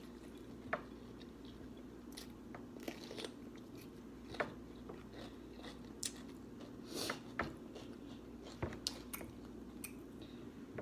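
A person eating close to the microphone: chewing and biting, with irregular small crunches, clicks and mouth smacks.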